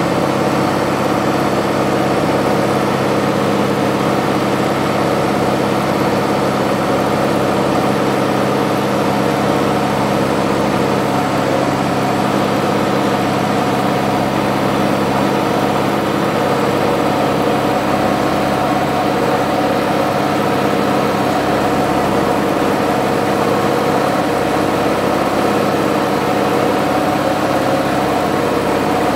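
Steady drone of an aircraft's engine heard from inside the cockpit on final approach: a dense, unchanging hum of many tones with a hiss over it.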